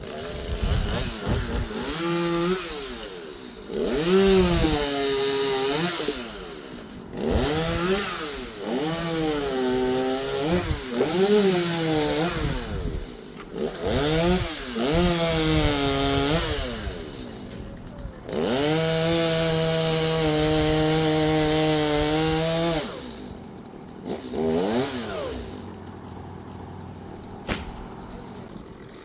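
Two-stroke chainsaw revved up and down again and again, then held at a steady high rev for about four seconds before dropping back to idle. One more short rev follows.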